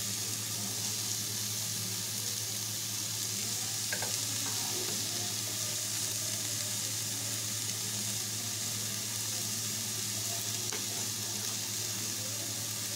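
Chopped onion, tomato and capsicum sizzling steadily in hot oil in a kadai, with a steady low hum underneath and a faint tick or two.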